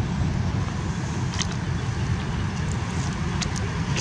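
Wind buffeting the microphone outdoors, a steady low rumble, with a few light clicks of pebbles knocking together.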